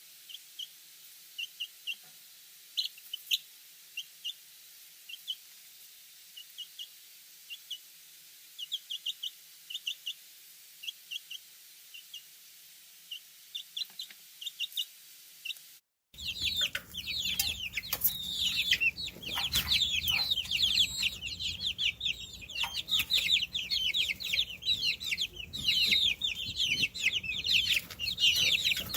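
Chicks peeping. At first there are short, high peeps in small groups, spaced out. After a brief cut about halfway through comes a louder, dense chorus of many chicks peeping at once, each peep falling in pitch.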